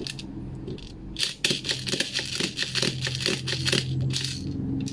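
Rapid clicking and rattling of BBs being thumbed out of an airsoft gas blowback rifle magazine's feed lips, starting about a second in and lasting about three seconds.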